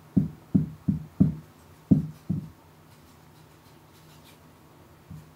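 A cat's tail thumping on a wooden floor: six dull thuds in about two and a half seconds, then one faint thud near the end.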